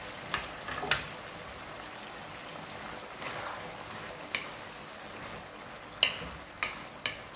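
Chilli chicken curry sizzling in a metal kadai while a wooden spoon stirs it, the spoon knocking sharply against the pan several times.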